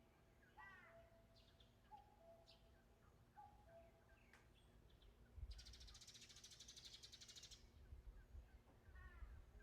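Faint recorded nature ambience: scattered bird chirps and a short low whistled note repeating every second or so, over a low wind rumble. About halfway through, a fast buzzing trill comes in for about two seconds.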